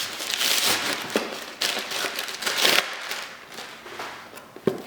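Packaging being handled and unwrapped: rustling and crinkling in ragged bursts, with a few sharp taps, dying down after about three seconds.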